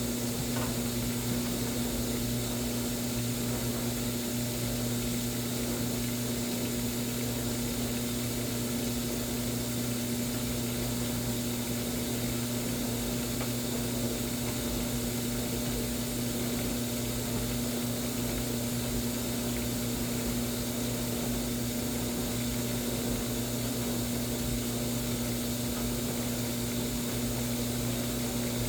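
Washing machine running on a whites cycle: a steady, unchanging low hum over a constant hiss.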